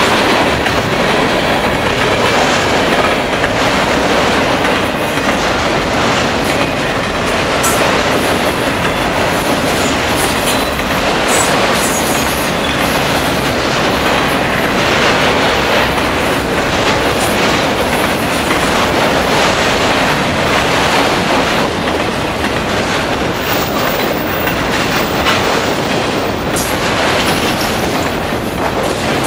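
Freight cars rolling past on steel rails, tank cars and then autorack cars: a steady rumble and clatter of wheels over the rail joints, with brief high wheel squeals now and then.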